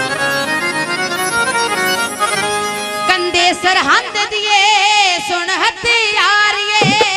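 Live Punjabi folk music: a harmonium plays a melody with tabla, and a woman's voice comes in about three seconds in, singing long wavering notes over the instruments and drum strokes.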